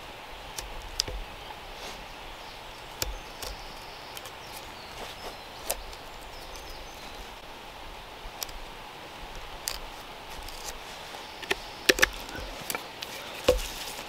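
Puukko-style knife cutting into a green stick, short sharp cuts and shavings snapping off at irregular intervals, the loudest cuts near the end.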